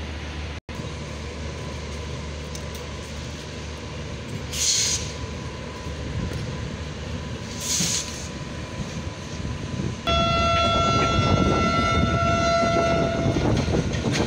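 Passenger train running along the track, heard from an open coach doorway, with two short hisses in the first half. About ten seconds in, a train horn sounds one long steady blast of roughly three and a half seconds.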